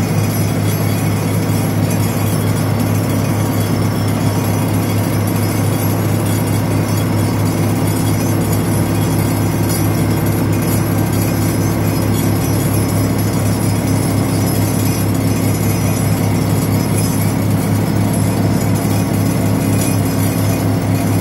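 Crane-hung vibratory pile driver running steadily as it vibrates a steel pile into the ground: a loud, unbroken hum with a strong low tone and several higher tones above it.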